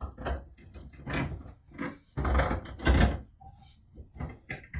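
A bench vise being lifted and shifted about on a wooden board: a run of clunks and scrapes, the heaviest about two to three seconds in.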